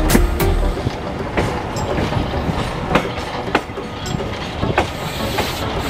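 Passenger train running along the track: a steady rumble and rush of air, with the wheels clacking over rail joints at uneven intervals, about one click every half-second to a second.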